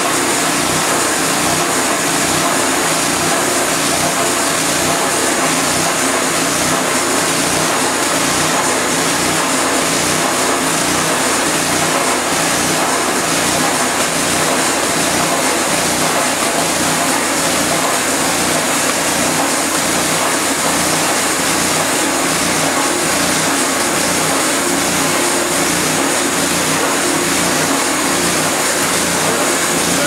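Homemade band sawmill running steadily, its gasoline engine driving the band blade as the head travels through a timber in a cut.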